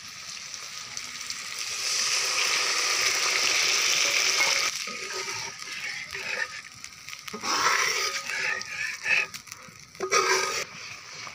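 Curry sizzling in a hot wok, a loud steady hiss that cuts off abruptly a little before halfway. Then a metal spatula stirs and scrapes the wok in short, uneven bursts.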